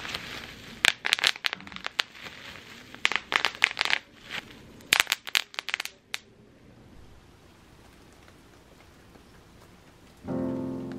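Bubble wrap being popped between the fingers: quick runs of sharp pops with plastic crinkling for about six seconds, then quiet. Music starts near the end.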